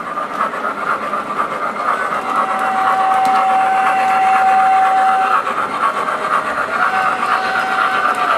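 MTH Rugged Rails Consolidation (2-8-0) O-gauge model steam locomotive running, its Proto-Sound 2 electronics playing a steady steam chuffing sound over the rolling noise of the train on the track. A single thin steady tone comes in about two seconds in and stops about five seconds in, then returns slightly lower and wavering near the end.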